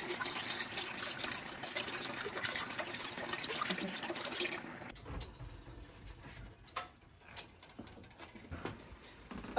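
Chicken broth poured from a carton into a pot of tomato sauce, a steady stream of liquid that stops about four and a half seconds in. A few faint knocks follow.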